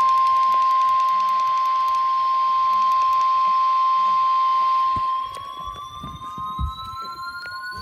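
Emergency Alert System attention tone: one loud, steady high tone. About five seconds in it gets quieter, and a second tone starts and rises slowly in pitch while the first continues faintly.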